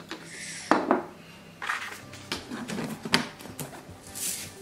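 Dried celery poured from a metal measuring cup through a plastic funnel into a glass mason jar: a short patter of dry pieces, a few sharp clinks of the cup against funnel and jar, and brief rustling.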